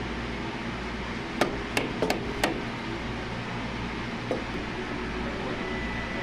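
Steel clamping hardware knocking against a milling machine table as a workpiece is clamped down: about five sharp metallic knocks in quick succession about a second and a half in, then one fainter knock, over a steady low hum.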